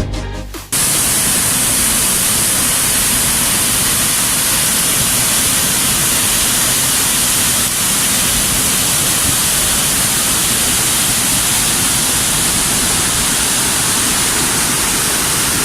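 Waterfall: a loud, steady rush of falling water, an even hiss with no change in level.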